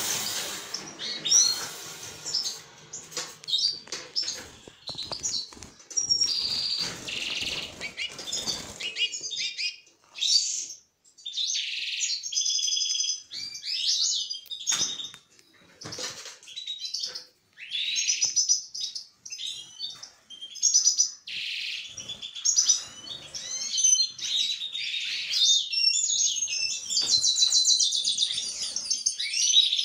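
Caged European goldfinches singing: quick twittering chirps and trilled phrases in a run of short bursts with brief pauses. A rustling noise lies under the song for the first nine seconds or so.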